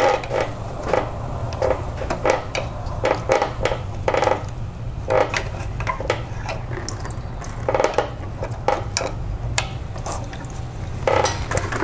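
A screwdriver clinking and scraping against the metal pipe and hose clamp of an engine oil cooler as a rubber coolant hose is pried and wiggled off, in irregular clicks and scrapes. A steady low hum runs underneath.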